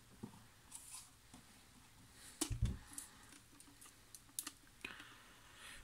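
Faint scattered clicks and taps of a steel spin-on oil filter canister and its cardboard box being handled, with a soft thump about two and a half seconds in.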